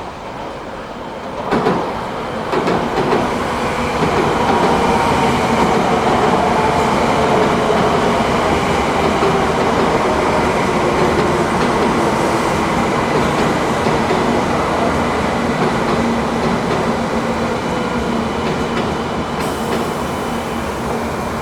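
A train passes at speed, its rumble and rail noise rising after a sharp thump about a second and a half in. It then holds loud and steady, with a whine running through it.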